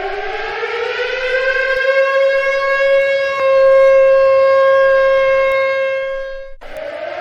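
Civil defense siren sounding an attack warning. Its tone rises over about three seconds and then holds steady. About six and a half seconds in it drops abruptly and begins rising again.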